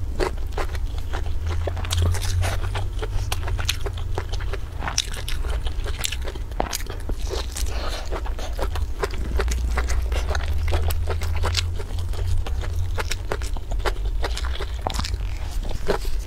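Close-miked eating: chewing and biting with many small crunchy, wet clicks, and a piece of fried meat being torn apart by gloved hands, over a steady low hum.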